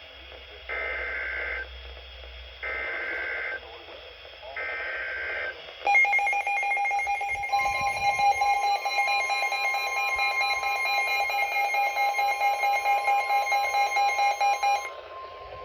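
NOAA Weather Radio emergency alert signal: three one-second bursts of warbling SAME digital header data, about a second apart. Then comes a loud alarm that lasts about nine seconds: a pulsing, buzzy beep together with a steady warning tone of about 1 kHz, which runs on a moment longer. It signals that a new warning is about to be read.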